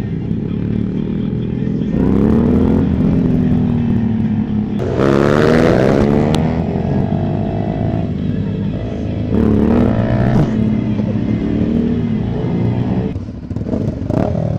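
Motorcycle engines accelerating, the engine pitch rising in several runs and loudest about five seconds in, then easing off near the end.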